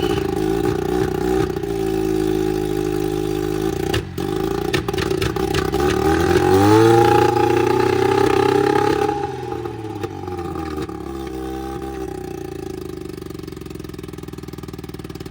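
10-horsepower two-stroke outboard motor running. It is revved up about six seconds in, held higher for a few seconds, then eases back to a steady idle.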